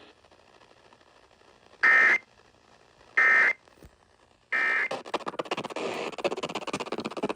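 Emergency Alert System end-of-message data bursts on NOAA Weather Radio: three short, harsh digital tone bursts about a second apart, marking the end of the severe thunderstorm warning. After the third burst comes crackling radio static.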